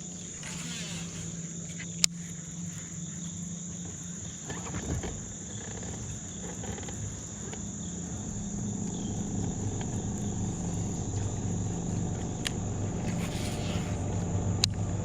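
Steady high-pitched drone of crickets or other insects over the low, even hum of a boat motor running, which grows slowly louder through the second half. There are sharp clicks about two seconds in and again near the end.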